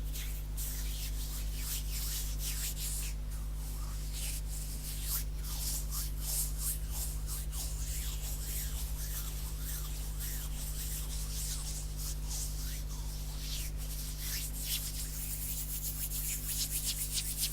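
Bare hands rubbing and brushing quickly against each other: a dense run of short, dry swishing strokes that grows quicker and more even near the end.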